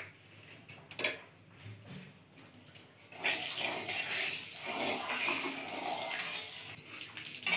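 Hot mustard oil in a steel kadai starts sizzling about three seconds in, as a steady hiss, while a spatula stirs it. Before that there are a few light clicks.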